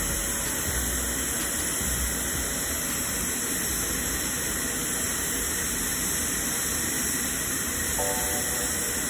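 Steady, even hiss of a TIG welding arc running on pipe, with a few short musical tones near the end.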